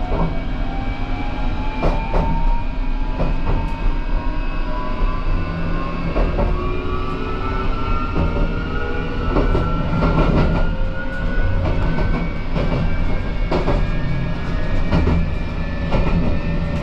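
JR Shikoku 8600 series electric train heard from inside, accelerating. Its traction motor whine climbs steadily in pitch over a low running rumble, with wheels clacking over rail joints every second or two.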